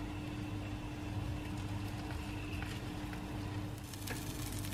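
Steady low electrical hum with a constant tone above it, with a few faint clicks shortly before the end.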